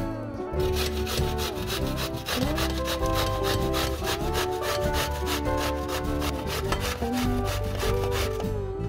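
Zucchini being grated on a stainless steel box grater: a fast, even run of rasping strokes, about four or five a second, starting about half a second in and stopping just before the end. Soft guitar music plays underneath.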